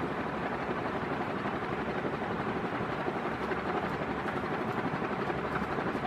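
A NuTone Proline 2 56-inch commercial ceiling fan running: a steady rush of moving air from the spinning blades, with a faint steady hum underneath.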